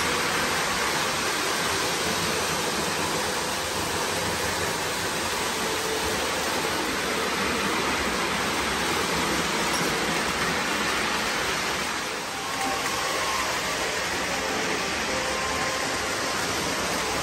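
O gauge model trains running around a layout: a steady rolling rumble of metal wheels on the track.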